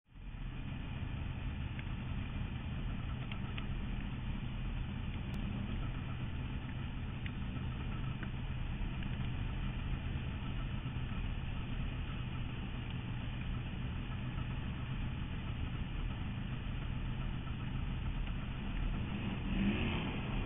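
Onboard sound of a USAC/CRA 410 sprint car's V8 engine running steadily at low speed, picking up briefly near the end.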